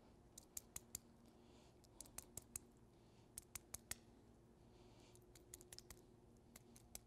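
Faint, irregular sticky clicks and smacks of greasy fingers working grease into a needle roller bearing, the edge of its cage pulled through a palmful of grease.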